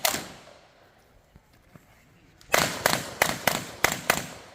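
1911-style pistol shots on a practical-shooting course of fire: one shot right at the start, then after a pause of about two seconds a quick string of about seven shots, each with a short ringing echo.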